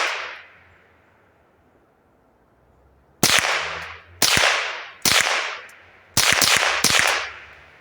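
Savage Model 62 semi-automatic .22 LR rifle firing a string of about six shots, each cracking sharply and echoing away. The first three come about a second apart, and the last three come close together.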